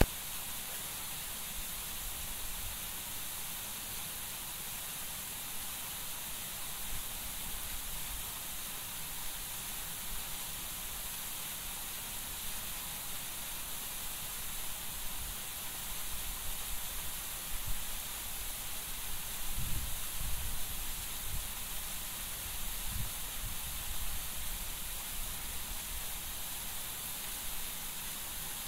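Steady hiss of a small waterfall pouring down a rock face into a river pool. A few low rumbles come through about two-thirds of the way in.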